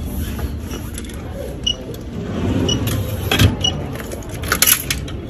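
Metal jangling and clicking at a low store display cabinet as it is opened, loudest in two clusters about three and four and a half seconds in, over a low steady rumble. A faint short high beep repeats about once a second.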